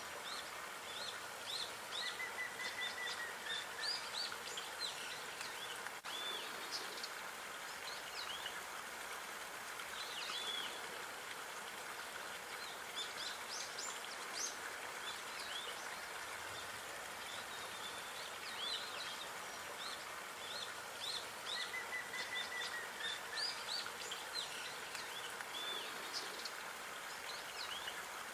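Songbirds chirping, many short high calls scattered throughout, with a brief trill twice, over a steady hiss of running water.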